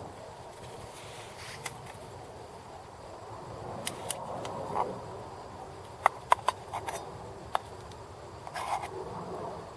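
Steady hiss of food cooking in a small titanium pot over an alcohol stove, with a metal utensil scraping the pot. Several sharp taps of the utensil on the pot come about six to seven and a half seconds in.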